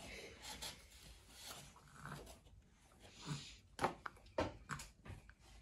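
Quiet handling sounds of babies eating cake off paper plates: soft rubbing and rustling, with a few sharp clicks and taps in the second half.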